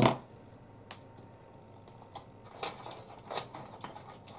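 Small metal hand tools being handled and set down on a workbench cutting mat: a sharp knock at the start, then scattered light clicks and clatters, the loudest about three and a half seconds in.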